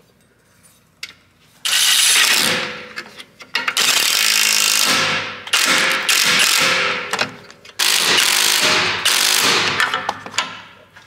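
Cordless impact wrench running a 16 mm nut onto the rear stabilizer link in four bursts of about two seconds each, its motor whine over the rapid hammering of the impact mechanism.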